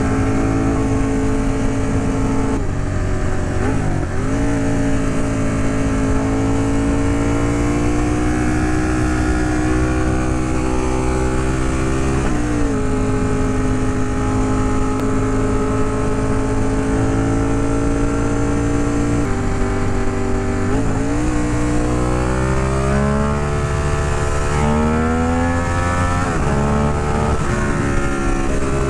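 Ducati Monster 821's L-twin engine pulling under way. Its pitch climbs slowly and drops back at each gear change, and the changes come quicker in the last several seconds.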